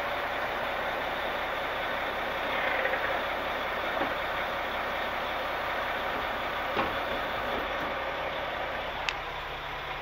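Concrete mixer truck's diesel engine running steadily while its hydraulics lower the fold-down discharge chutes, with a few light clunks from the chute sections.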